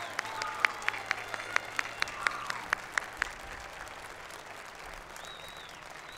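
Audience applauding, with several sharp, close claps standing out over the first three seconds before the applause thins and dies down.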